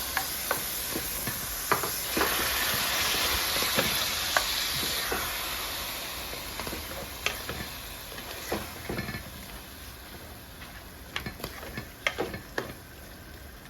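Seasoned chicken pieces sizzling as they go into hot olive oil in a pot, with a utensil clicking and knocking against the pot as they are stirred. The sizzle is loudest a couple of seconds in and dies down over the following seconds, while the knocks come more often near the end.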